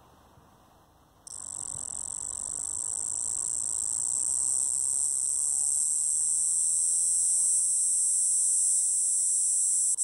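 Male double-spotted cicada (Galanga labeculata) singing: a loud, high, continuous buzz that starts abruptly about a second in, slowly grows louder, and cuts off sharply at the very end.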